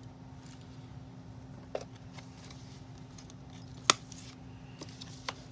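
A few sharp snips and clicks, the loudest about four seconds in, with light rustling: plastic fastenings holding a Barbie doll to her cardboard box insert being cut. A faint steady hum runs underneath.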